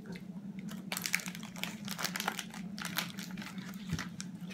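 Irregular crinkling and crackling of a Pocky snack packet being handled, over a steady low hum.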